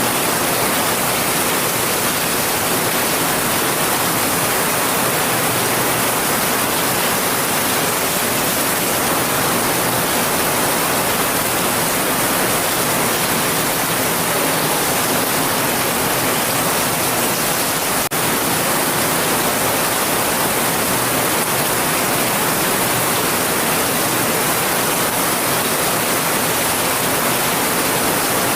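Heavy rain, a dense, even hiss with no single drops or thunder standing out. About two-thirds of the way through there is a brief click and dip, like an edit seam.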